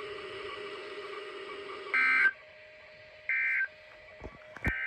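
Emergency Alert System end-of-message tones: three short, identical bursts of digital warbling data about 1.4 s apart, the code that closes an alert broadcast. Before the first burst, about two seconds of faint steady radio hum.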